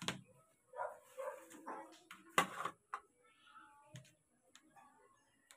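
A dog whimpering and yipping in short bursts, with one louder sharp burst about two and a half seconds in, then only faint clicks.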